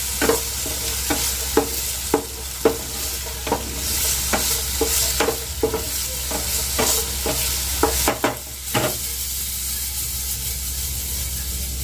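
Cashews and raisins sizzling in cow ghee (gawa ghee) in a frying pan on a low flame while being stirred, the utensil knocking against the pan about once or twice a second. A quick cluster of knocks comes about eight seconds in, then the pan mostly just sizzles.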